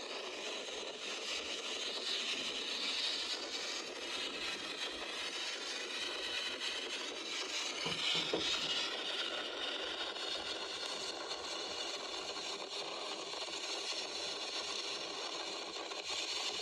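Hurricane-force wind and driving rain: a steady rushing noise without breaks, swelling briefly about halfway through.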